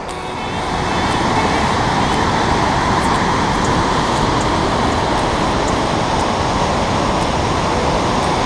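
Whitewater rapids of a fast mountain river rushing over boulders, a steady full roar of water that grows louder about a second in.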